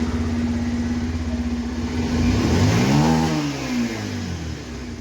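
Bajaj Pulsar 125 BS6 single-cylinder engine running, blipped once about two seconds in so the pitch rises and falls back to idle. It pulls cleanly with the spark plug gap reset, a sign the misfire is cured.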